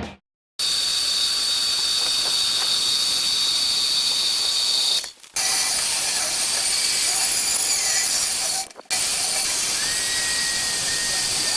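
Steady hissing metalworking noise from a power tool at work, with a faint high whine running through it. It stops abruptly for a moment twice, about five and nine seconds in.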